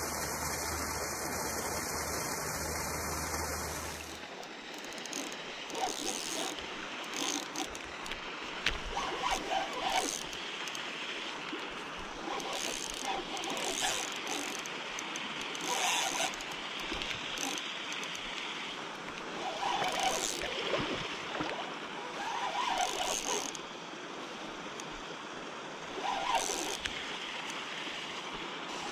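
Okuma Stratus-V spinning reel cranked in short spurts as a twitching jig is worked, each spurt a brief whirring, clicking burst. The bursts come every one to three seconds, after a steady hiss with a low hum in the first few seconds.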